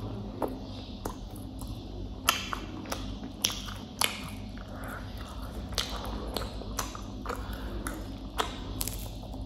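Close-up eating sounds: chewing fried chicken and picking at its crispy coating, with scattered sharp clicks and crackles.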